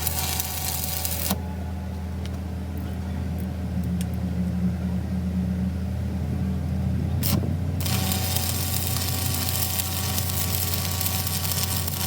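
A machine running steadily with a low hum. Partway through, the hiss above it drops away for several seconds and then returns.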